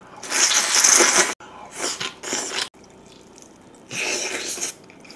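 A person eating with loud, wet slurping and sucking sounds, in three bursts of about a second each.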